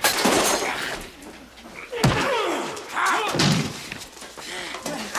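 Sounds of a brawl: a heavy slam at the start and another about two seconds in, with men grunting and crying out between the blows.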